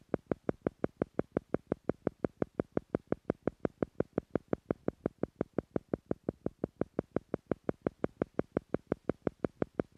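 Theta-frequency pulse sound: a short electronic tone beating evenly about five times a second, the brainwave-entrainment beat laid under a guided meditation to slow the listener's brain rhythm to the theta level.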